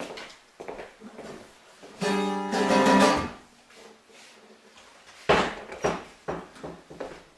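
Acoustic guitar strings plucked in irregular single notes and strums, with one chord ringing out for about a second near the middle.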